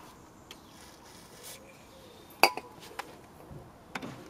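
A few light metallic clicks and clinks from tools being handled, the sharpest about two and a half seconds in.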